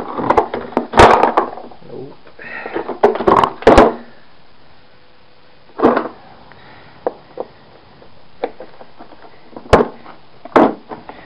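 Hard plastic vacuum-cleaner lid being knocked and worked loose: irregular sharp knocks and cracks of plastic, coming in clusters with short pauses between.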